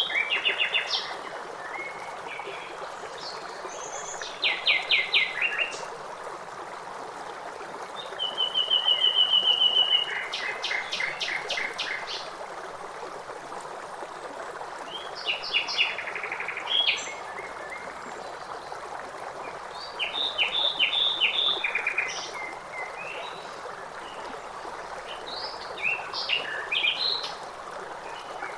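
Songbirds singing in short phrases and rapid trills every few seconds, over the steady rush of a flowing stream.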